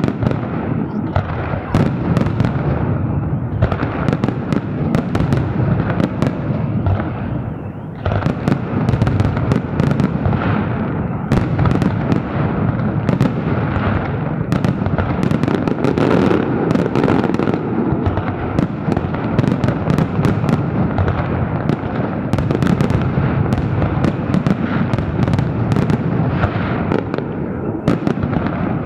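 Festive fireworks salute: a dense, nearly unbroken barrage of bangs and sharp crackling cracks over a continuous low rumble, with a brief lull about eight seconds in.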